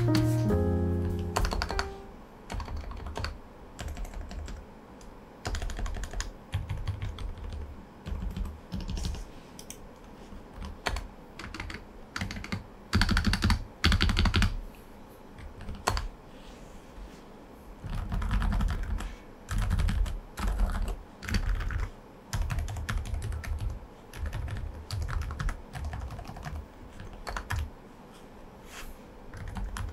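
Typing on an Aula F98 Pro V2 mechanical keyboard fitted with silent switches: soft keystrokes in irregular runs, with a few louder heavy-key clusters. A piano tune fades out in the first second or so.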